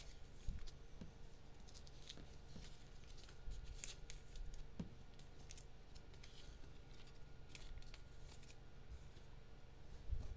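Faint, scattered rustling and clicking of trading-card packaging and cards being handled.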